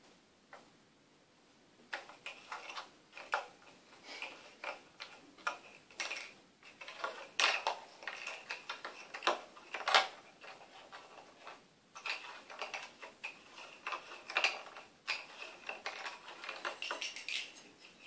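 A cat's toy knocked about in play: irregular clicks and rattles of hard pieces in quick clusters, starting about two seconds in and loudest around the middle.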